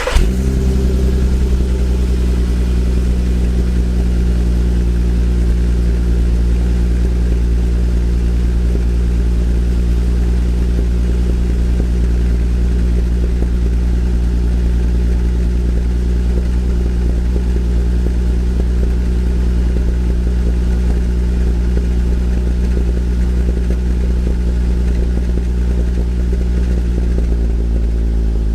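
Volkswagen Eos VR6 engine on its fully stock exhaust, idling steadily just after starting; its pitch eases down in the first second and drops a little lower near the end as the idle settles.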